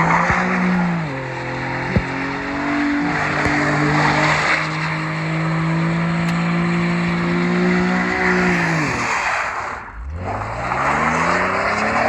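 A car engine running at a steady pitch for several seconds, then easing off and dropping about nine seconds in. It then accelerates again with a rising pitch near the end, over steady road or tyre noise.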